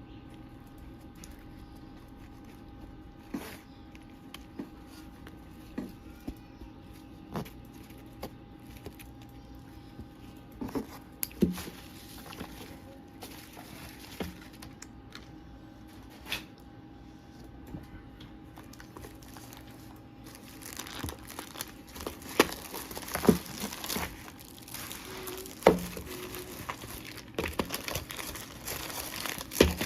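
Plastic packaging being handled and opened: crinkling and some tearing, with scattered sharp clicks and taps. It gets busier and louder in the last third.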